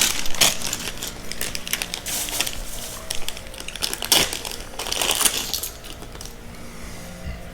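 Hands working with wire and small tools: irregular clicks, metallic taps and rustling, with louder clusters near the start, around two seconds in, and around four to five seconds in.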